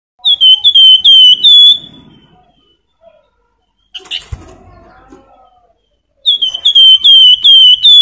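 Javan fulvetta (wergan jawa, the 'flamboyan') singing two loud fluting phrases, each a run of about five quick slurred whistles on nearly the same pitch. A faint knock falls between the phrases.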